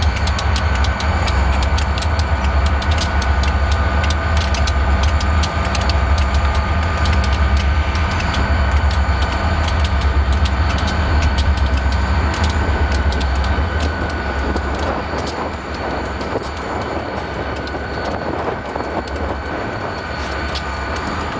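Several Indiana & Ohio Railway diesel-electric locomotives idling while standing still: a steady low rumble with a steady high-pitched whine over it, easing off a little about two-thirds of the way in.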